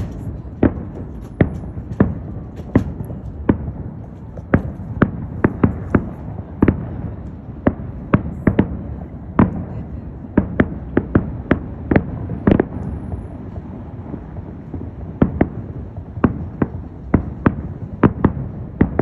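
Aerial fireworks bursting in a rapid, irregular string of sharp bangs, often two or three a second, over a continuous low rumble.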